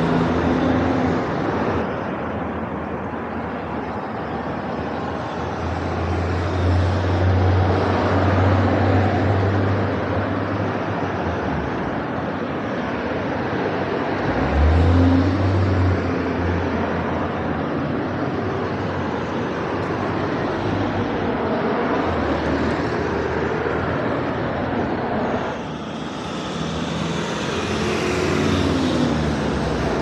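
Steady outdoor road traffic noise, with louder passing vehicles swelling up about six to ten seconds in and again briefly about fifteen seconds in.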